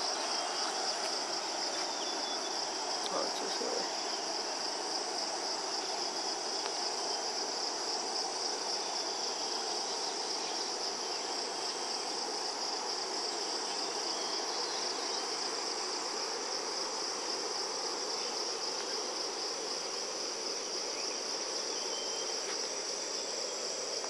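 Steady, shrill chorus of insects in forest, a continuous high-pitched rapid trill that never pauses, over a soft, even background hiss.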